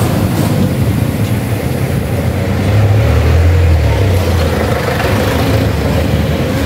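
Low, steady rumble of a motor vehicle engine running close by, swelling for about a second some three seconds in.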